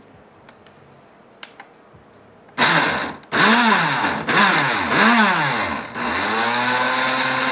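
Countertop blender motor pulsing raw potato chunks with flour into a lumpy potato pancake batter. Starts about two and a half seconds in, then several short pulses whose pitch rises and falls as the blades bite into the chunks, then a longer run near the end.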